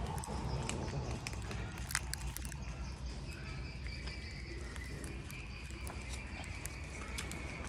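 Cats eating from ceramic bowls: scattered small chewing and licking clicks over a steady low background hum. A thin, steady high whine sits behind it, growing stronger in the second half.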